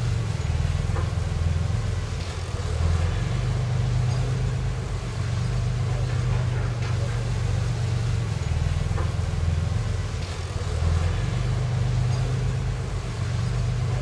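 Heavy diesel engine of an earthmoving machine working steadily, its low note dipping and rising again a few times as the load changes, with faint scattered clanks.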